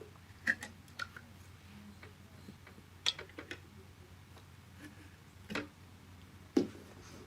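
Scattered sharp clicks and taps, about six in all at irregular gaps: a Torx key working the retaining tabs at the back of a Nespresso Gemini CS203 coffee machine to slide them out and free the top cover.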